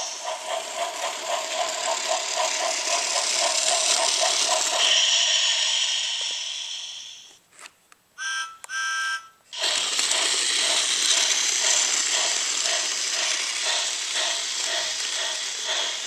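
Trackmaster remote-control Thomas toy train running on plastic track: a rattling motor whir with a regular click or chuff about three times a second. The running noise stops briefly a little before halfway, two short tones sound, then the rattle resumes.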